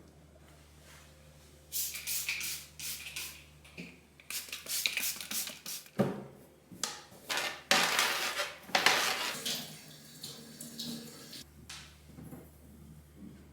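Water running at a kitchen sink in several short spells, the longest a few seconds before the end, as things are rinsed under the tap, with light clinks of dishes.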